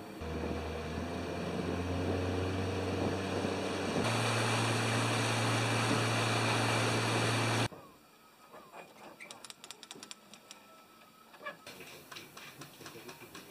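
Small boat's outboard motor running steadily, heard from on board as a low engine hum with a rushing hiss. It grows louder and higher about four seconds in and cuts off abruptly just before eight seconds in. A much quieter stretch with faint clicks and taps follows.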